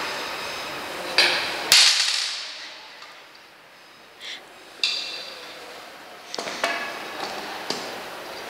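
Steel tube parts of an exercise machine frame knocking and clanking together as they are fitted by hand, with a few sharp metal clanks that ring briefly. The loudest clank comes just under two seconds in.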